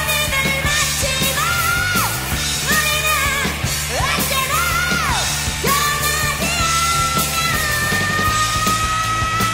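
1980s heavy metal band recording playing loud and full: a high lead part rises and falls in short wailing phrases, then holds one long high note from about six seconds in, over steady drums, bass and distorted guitar.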